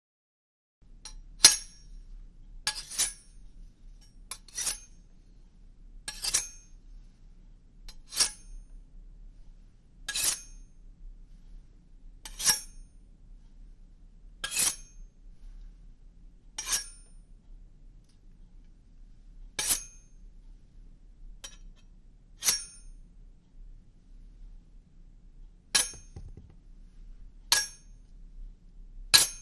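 Horror suspense sound effect: sharp, high glassy clinks, one every two seconds or so, over a faint low hum. The hum starts about a second in after a moment of silence.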